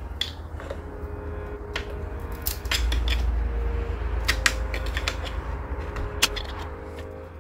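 Metal clinks and scrapes of a screwdriver prying at a tractor's steel rear-axle bearing retainer to work it loose, with a handful of sharp clicks in the middle seconds over a steady low hum.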